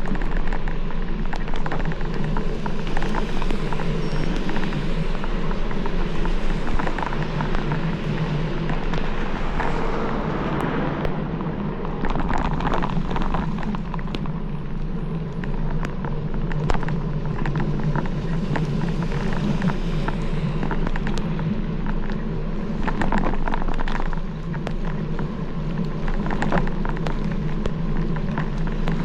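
Steady rushing wind and road rumble on a moving camera, with a constant low hum and a dense crackle of raindrops striking the camera.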